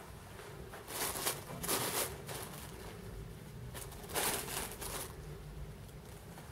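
Riding gloves and their packaging rustling and crinkling as they are handled. There are three short rustles: about a second in, around two seconds, and a longer one about four seconds in.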